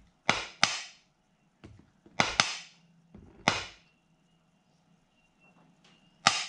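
Metal pump oil can clicking each time its base is pressed, squirting lubricant into a model engine's grease cup. Six sharp clicks with a brief metallic ring, several coming in quick pairs.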